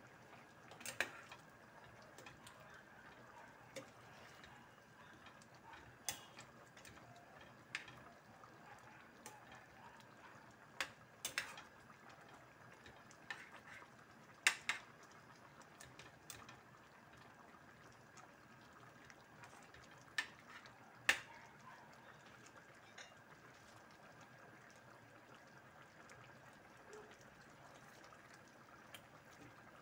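Coconut-milk stew simmering faintly in a stainless steel pan, with scattered sharp clicks and taps as a spoon stirs it and knocks against the pan.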